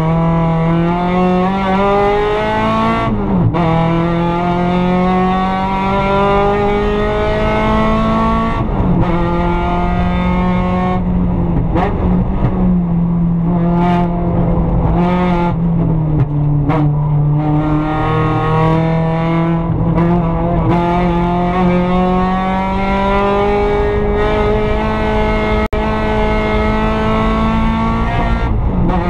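Mazda Miata race car's four-cylinder engine heard from inside the stripped cockpit under hard acceleration. Its pitch climbs in long rises broken by sudden drops at each gear change: a few shifts in the first half, then one long climb to another shift near the end.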